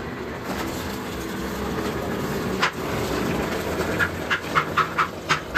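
Electric sugarcane mill (trapiche) running and crushing cane between its rollers with a steady mechanical rumble. There is one sharp crack about halfway through and a quick run of sharp cracks near the end as the stalks are crushed.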